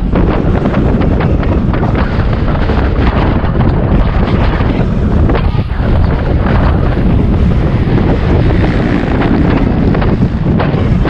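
Wind buffeting the microphone of a camera riding along on a road bike at speed: a loud, steady rush.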